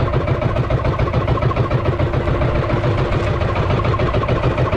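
Outrigger fishing boat's engine running steadily at slow trolling speed, an even, rapid chugging.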